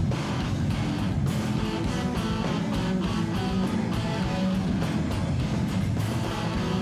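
Live rock band playing an instrumental passage: electric guitar over bass guitar and drums, at a steady beat.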